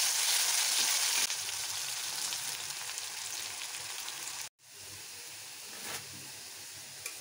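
Potato wedges sizzling as they fry in hot oil in a kadai. The sizzle steps down about a second in, breaks off for a moment about halfway, then carries on more softly.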